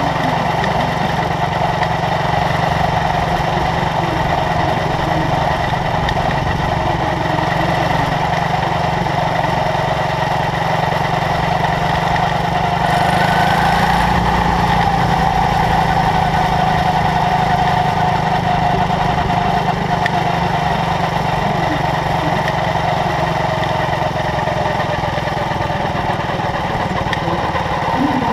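Quarter midget race car's small single-cylinder engine running steadily at a gentle pace, heard from on board the car. Its pitch rises a little about halfway through, then eases back.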